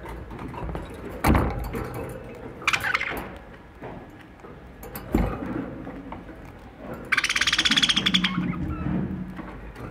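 Budgerigar in its cage: two dull knocks, a short chirp about three seconds in, and a harsh, buzzing chatter lasting just over a second near the end.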